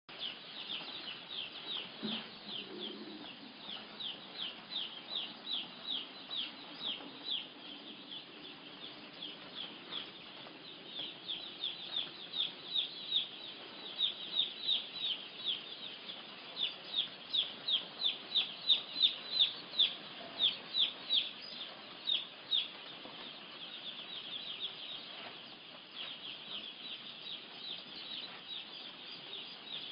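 Chicks peeping: a steady run of short, high, falling peeps, about three a second, louder in the middle stretch.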